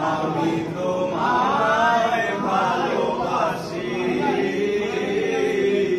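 Male voices singing a slow, chant-like melody with no clear instruments, ending on a long held note.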